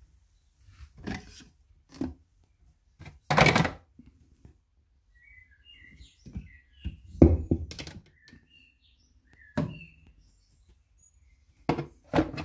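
Irregular knocks and clatters of parts and tools being handled while setting up a vacuum bleeding rig for a motocross rear shock, the loudest about a third of the way in and again past the middle. A few faint bird-like chirps come in between.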